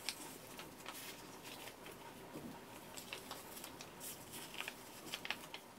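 Quiet rustling and crinkling of a medicated pain-relief patch and its backing as it is smoothed by hand onto the neck and shoulder, with a few sharper crinkles near the end.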